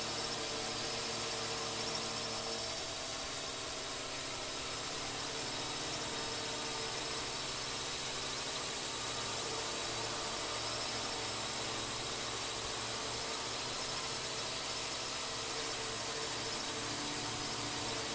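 Multirotor drone's electric motors and propellers whining steadily in flight, a high, even hum with a hiss on top that holds the same pitch throughout.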